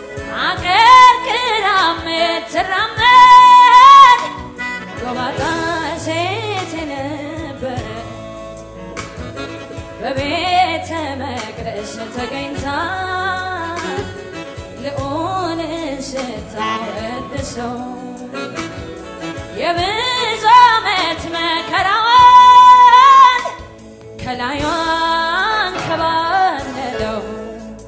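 A woman singing a gospel song solo through a microphone and PA, holding several long notes, two of them high and loud, over sustained backing chords.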